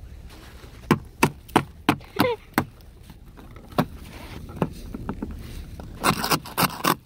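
Ice being chipped and knocked off a frozen car: a run of sharp knocks, a few more spaced out, then a crunching scrape about six seconds in.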